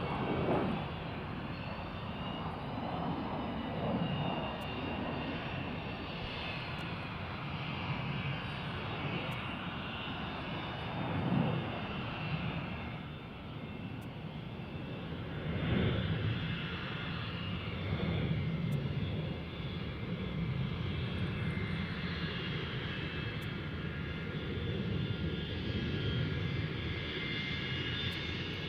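Airport runway ambience: aircraft engines running steadily, a continuous roar with high whining tones on top that swells in loudness a few times.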